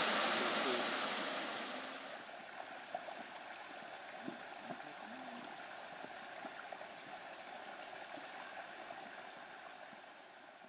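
Rushing water of a waterfall and mountain stream, a loud hiss for about two seconds, then dropping to a softer, steadier rush with a few faint short chirps. It fades toward the end.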